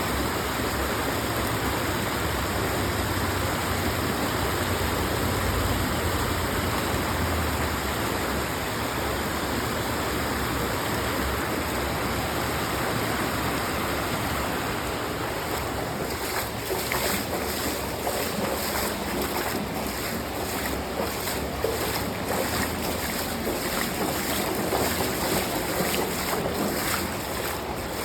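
Creek water running steadily. A little past halfway the noise turns choppier and more uneven.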